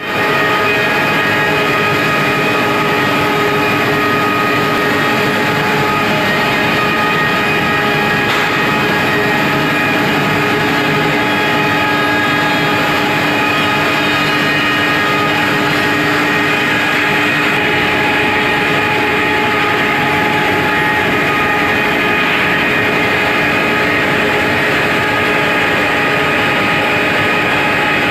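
Wood pellet production line running under load: electric motors, fans and the pellet mill make a loud, steady mechanical din with several steady whining tones over it.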